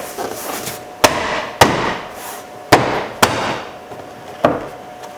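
Five sharp knocks as a car's plastic interior door panel is struck by hand and pressed onto the door, its retaining clips seating.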